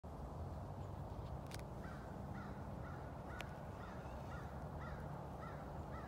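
A bird calling over and over, a short note about twice a second starting about two seconds in, over a steady low rumble, with two faint clicks.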